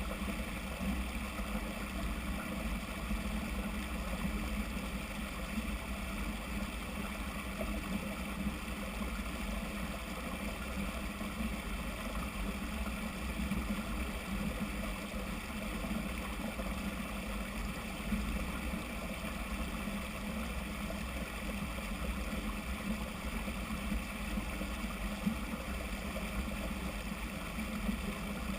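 Steady rushing noise with a deep rumble underneath, typical of wind and trail noise on a camera carried on a mountain bike ride.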